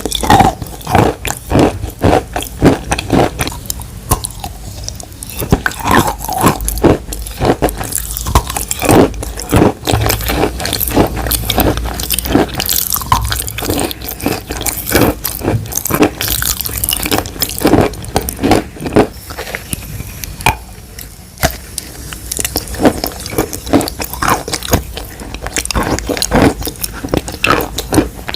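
Wet, crunchy chewing and biting: a dense, irregular run of sharp crunches and crackles throughout.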